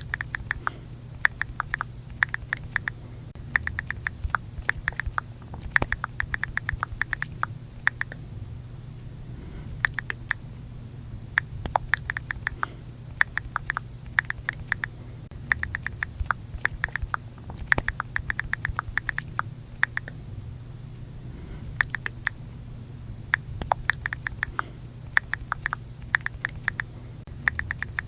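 iPhone on-screen keyboard click sounds, as when texting with the sound on: quick runs of taps in bursts a second or two long, separated by short pauses, over a faint low hum.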